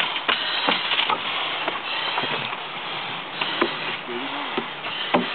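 Scattered knocks and scrapes of firefighters' gear against wooden pallets as they crawl through a pallet maze, over a steady rushing noise. A short voice comes in about four seconds in.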